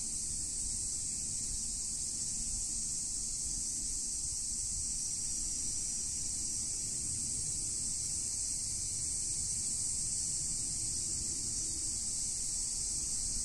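A steady, unbroken high-pitched chorus of summer insects, with a faint low rumble underneath.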